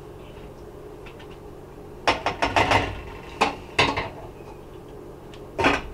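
A spoon clinking and scraping against a saucepan and bowl as stew is served out: a quick cluster of clinks about two seconds in, a few more a second or two later, and one more near the end.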